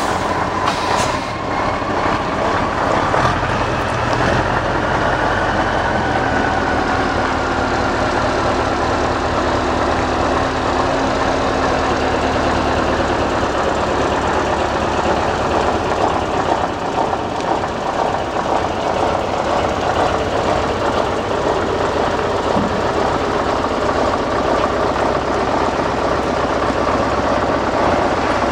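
Scania 140 Super's 14-litre turbocharged V8 diesel running steadily at idle, with a thin high whistle over it in the first half.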